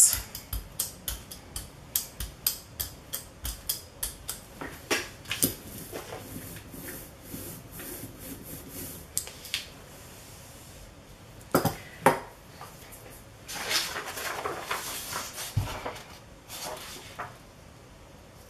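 A brayer rolled back and forth over tacky acrylic paint on a gel printing plate, clicking a few times a second with each stroke at first, then more sparsely. About halfway through come two sharp knocks a moment apart, then a short rustle and another knock.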